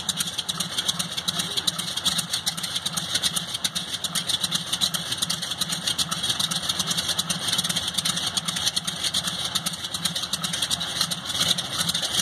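Beech C-45 Expeditor's twin Pratt & Whitney R-985 Wasp Junior nine-cylinder radial engines idling with a steady, rapid beat.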